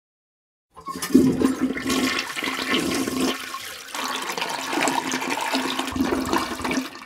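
Toilet flushing: a rush of water that starts about a second in, runs for about six seconds with a steady low hum under it, and dies away near the end.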